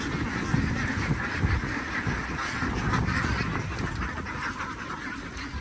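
A large flock of domestic ducks quacking continuously, many calls overlapping, over a steady low rumble.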